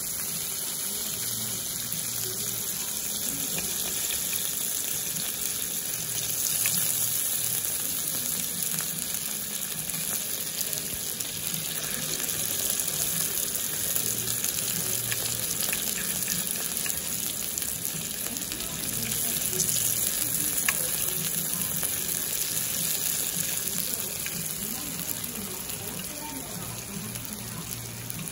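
Steady hiss throughout, with a few faint light clicks of a knife and fork against a ceramic plate as a steak is cut.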